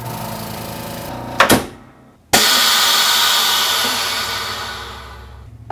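VacMaster VP210 chamber vacuum sealer working through its cycle: the vacuum pump runs steadily, there is a sharp clunk about a second and a half in, and after a short lull a sudden loud rush of air fades away over about three seconds as the chamber vents back to air.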